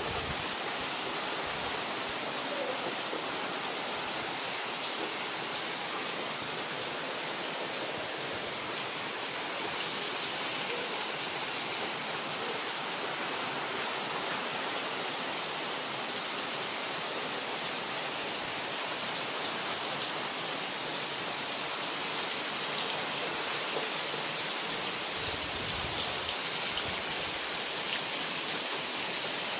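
Heavy rain falling steadily on trees and foliage, a constant even hiss.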